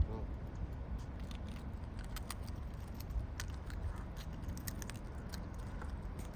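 Birds pecking and tugging at a chip packet: scattered sharp clicks and crinkles over a steady low rumble.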